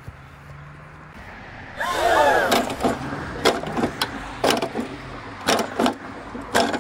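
A short yell about two seconds in, then a run of about eight sharp hits over the next four seconds, like blows landing, as the man and the push mower grapple.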